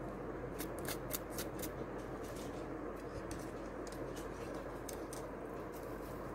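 Crepe paper crinkling and rustling as hands handle it, with a cluster of short crackles about a second in, over a steady background hiss.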